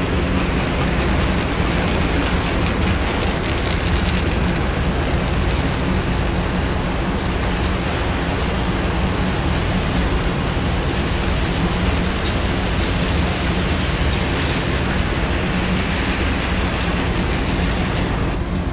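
HO scale model passenger train running past at close range: a steady rumble of metal wheels rolling on the rails, with a low hum from the locomotive motors.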